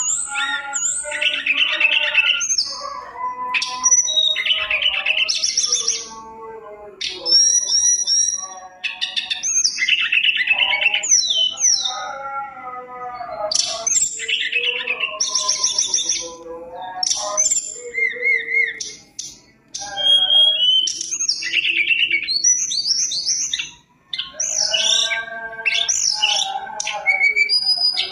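Male hill blue flycatcher (tledekan gunung) singing a long, varied song of fluty whistles, gliding phrases and rapid trills. It breaks off briefly about six seconds in, again near the two-thirds mark, and once more shortly after.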